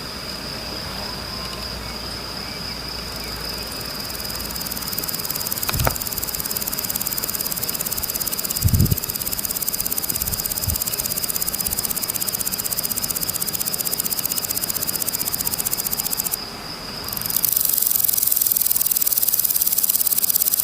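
Crickets chirping steadily in a continuous high trill, with a couple of low thumps about six and nine seconds in. The chorus dips briefly about sixteen seconds in, then comes back louder.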